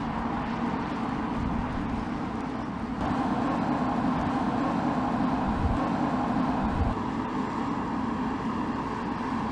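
BMW 4 Series Coupé driving at speed: steady engine and tyre noise on the road. It steps louder about three seconds in and eases a little near seven seconds.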